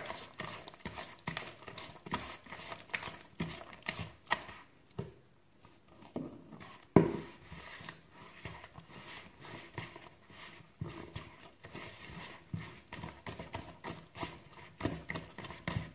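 A hand mixing and beating wet bread dough in a plastic bowl, making a run of irregular wet slaps and clicks. The slaps pause briefly about five seconds in, and one sharper slap comes at about seven seconds.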